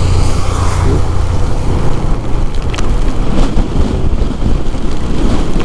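Crosswind buffeting the microphone on a moving motorcycle: a loud, continuous low rumble of wind noise over the bike's road and engine sound.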